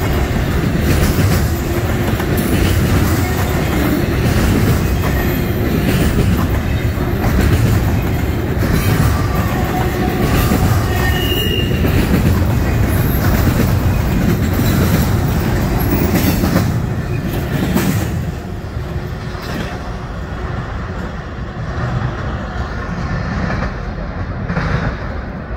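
Double-stack intermodal freight train's loaded well cars rolling past: steady loud rumble and clatter of steel wheels on the rails, with a brief high wheel squeal about eleven seconds in. The noise drops at about eighteen seconds as the last cars go by and the train draws away.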